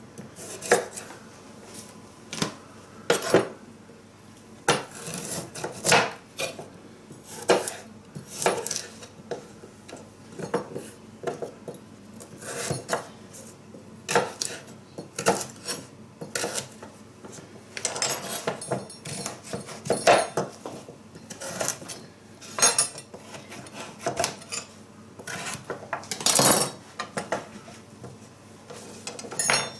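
Kitchen knife chopping raw pumpkin, sweet potato and carrot on a wooden chopping board: irregular sharp knocks of the blade striking the board, roughly one or two a second.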